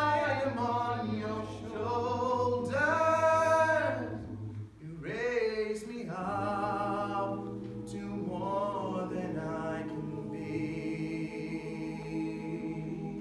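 Mixed a cappella vocal ensemble of men and women singing a slow ballad's closing phrases in harmony. From about six seconds in, they hold one long final chord.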